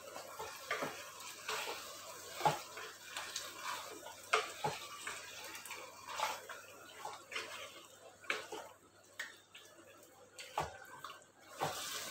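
Wooden spatula stirring chicken pieces in a thick, wet masala in an earthenware pot: wet squelching and irregular scrapes and knocks against the clay, about one or two a second.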